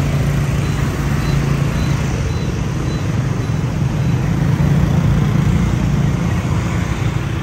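Steady road traffic noise with a continuous low engine rumble.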